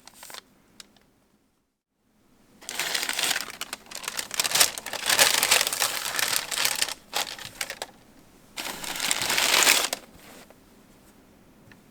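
Packaging paper crinkling and rustling as it is handled, in two spells of a few seconds each, the second ending about ten seconds in.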